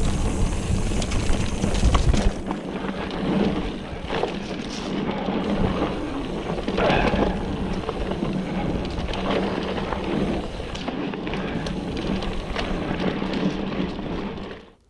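Hardtail mountain bike ridden down dry dirt singletrack: steady tyre roar on the trail with rattling from the bike, and wind buffeting the microphone hardest in the first two seconds. The sound cuts off suddenly near the end.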